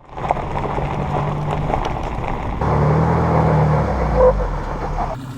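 A motor vehicle's engine running with a steady low drone, the sound changing abruptly about two and a half seconds in.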